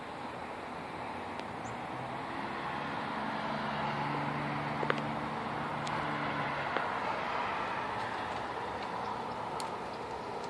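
A vehicle passing, its noise swelling over a few seconds with a low engine hum and then fading away. A few light clicks are heard in the middle and near the end.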